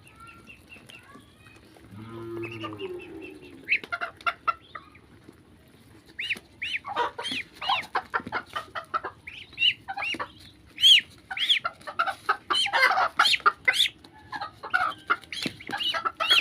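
Chickens clucking and calling: a brief low call about two seconds in, then many short high calls and clucks that come thick and fast from about six seconds in.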